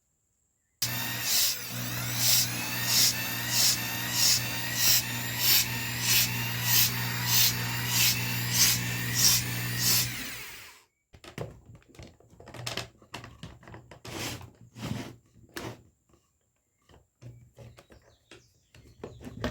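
Electric drill driving a hand tyre pump: the drill's motor runs steadily while the pump strokes rhythmically, about one and a half strokes a second, for about ten seconds, then winds down and stops. Scattered clicks and knocks of handling follow.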